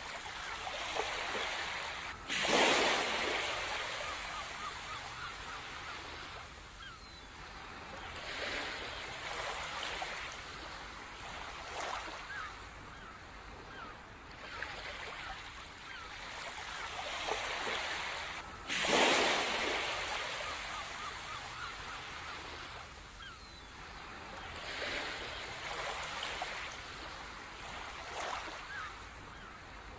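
Ocean surf: waves rolling in and washing back in slow swells, with two bigger waves breaking suddenly, about two seconds in and again a little past halfway, each fading out slowly.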